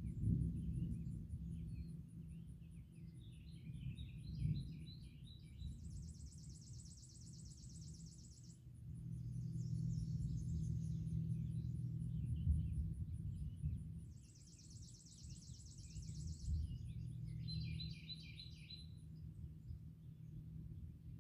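Distant thunder rumbling low and long, swelling into a louder roll about halfway through. Songbirds sing over it: two long, fast high trills and a few shorter chirping phrases.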